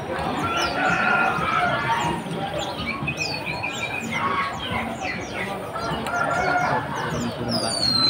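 Many caged birds calling at once: a dense mix of short chirps and high, falling whistles, with lower held calls among them.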